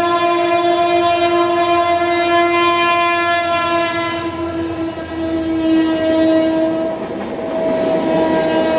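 Train horn sounding in one long, steady blast, with a rushing noise building underneath near the end.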